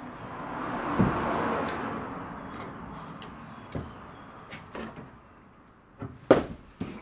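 A climber moving on a wooden home climbing board: a long rushing hiss early on, then scattered knocks as hands and shoes strike the holds and plywood, with one loud thud about six seconds in.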